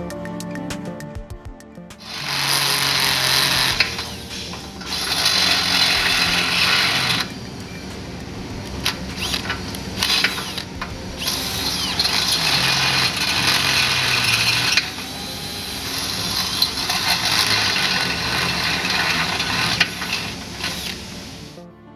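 DeWalt 20V cordless drill boring out holes to 1/2 inch in a steel vehicle frame rail, running in several bursts of a few seconds each with short easings in between. Background music plays for the first couple of seconds before the drill starts.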